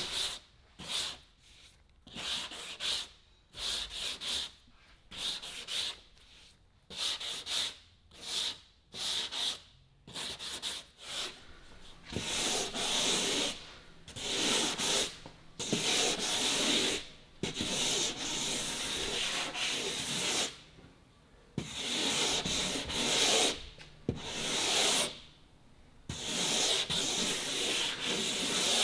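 Hand block-sanding of body filler on a fiberglass car fender: sandpaper rasping back and forth in strokes. For the first twelve seconds or so the strokes are short and separate, about one a second. After that they run longer and almost without break, with a few short pauses.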